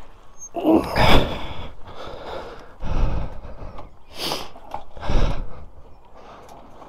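Vincent Rapide Series C 1000cc V-twin being kick-started: three kicks about two seconds apart, each a low thud as the engine turns over without catching, with the rider's breathing between them.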